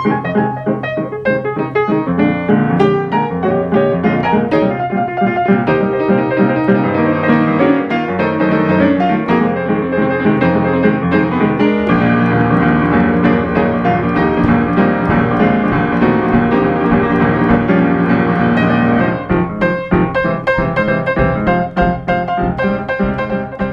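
Piano music: a steady flow of quick notes, turning to more separate struck chords near the end.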